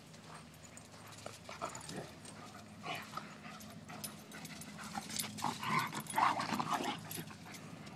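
Dogs vocalising as they play, a white German Shepherd and a small dog, with short sounds that come in a cluster about five to seven seconds in.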